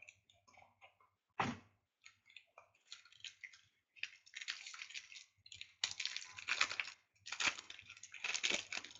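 Crinkling and crackling of a plastic trading-card pack wrapper being worked open by hand, in short scattered rustles at first and busier, louder crackling in the second half.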